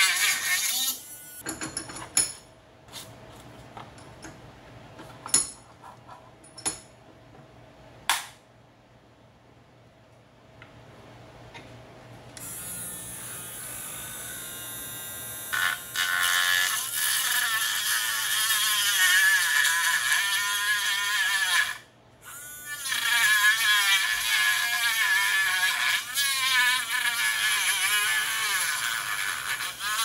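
Rotary tool with a small abrasive cut-off wheel cutting along the seam of a plastic AC adapter case. The cutting comes in spells: a short one at the start, a few sharp clicks, then long stretches of cutting with a brief pause about two-thirds of the way through.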